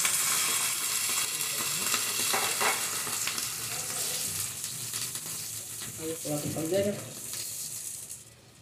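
A cup of water poured into hot oil in a frying pan of onions, green chillies, garlic and nuts, sizzling hard at first and slowly dying down as it comes to a simmer, while a silicone spatula stirs the pan.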